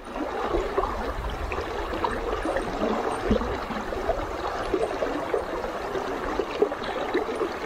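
Shallow stream running steadily over a stony bed close by, the water's bubbling rush continuous and even.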